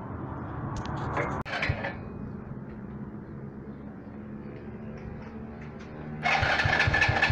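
Light metallic clicks and clinks of hand tools on a small motorbike engine under repair, over a steady low hum. About six seconds in, a much louder, busier sound starts abruptly.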